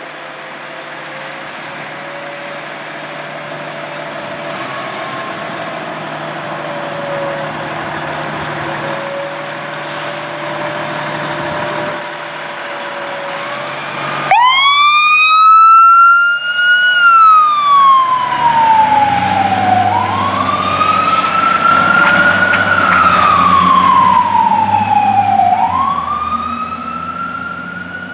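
Spartan Gladiator fire engine running as it pulls out of the station bay. About halfway through, its siren comes on suddenly in a wail, sweeping slowly up and down and peaking about every five seconds, with the engine's low hum beneath it.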